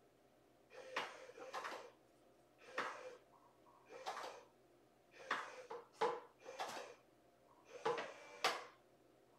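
Cats pawing and rummaging at a cardboard box: a run of short scraping, rustling bursts, about one a second, some starting with a sharp scratch.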